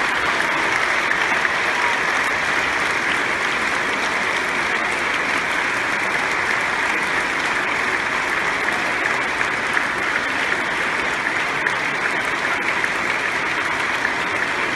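Theatre audience applauding steadily: a sustained curtain-call ovation.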